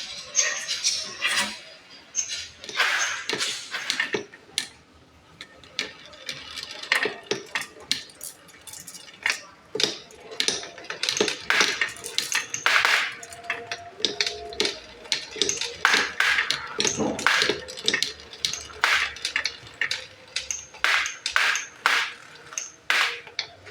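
Glass marbles rolling and clattering through a marble run of wooden HABA slopes and a transparent pipe: a rapid, irregular stream of clicks and knocks as the marbles strike the track and each other.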